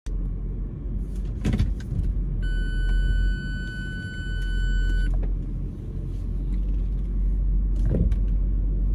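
Low steady rumble of a car idling, heard from inside the cabin, with a few short clicks of handling. A steady electronic beep sounds for nearly three seconds from about two and a half seconds in.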